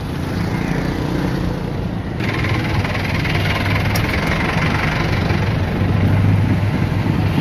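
A vehicle engine idling close by among street traffic noise, a steady low hum that grows louder near the end.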